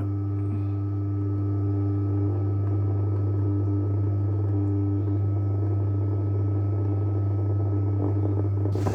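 JW Ratcliffe and Sons electric pottery wheel running at reduced speed, its motor giving a steady electric hum.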